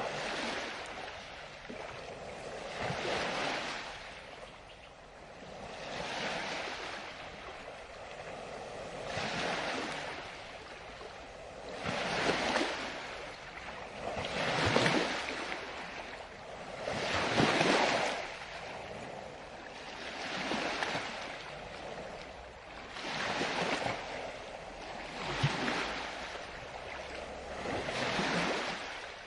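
Ocean surf on a beach: waves breaking and washing in one after another, a swell about every three seconds, the strongest ones in the middle.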